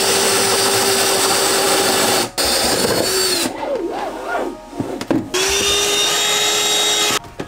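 Cordless drill boring a hole through a wooden cabinet panel, its motor running at a steady high speed with a short break about two seconds in. After a quieter stretch, a handheld vacuum runs steadily for about two seconds near the end, sucking up the sawdust.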